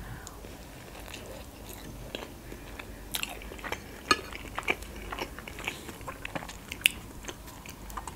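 Close-miked chewing of a stuffed cabbage roll, with soft, irregular wet mouth clicks and smacks.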